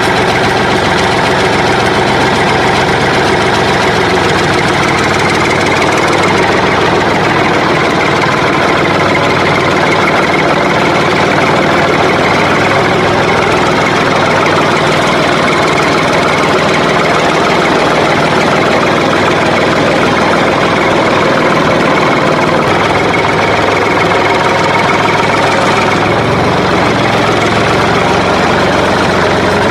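Engine-like motor sound running steadily and loudly for a miniature toy tractor dragging a tine cultivator through sand.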